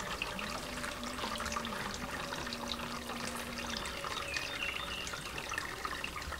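Raw chicken pieces being rubbed and turned by hand in a shallow stone mortar of ground-coriander marinade: wet squelching with small drips and trickles of liquid.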